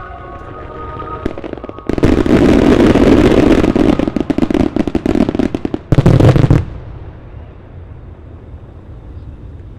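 Finale of a starmine fireworks barrage. About two seconds in, a dense, rapid run of bangs and crackling lasts about four seconds, then one last heavier burst, after which it dies away.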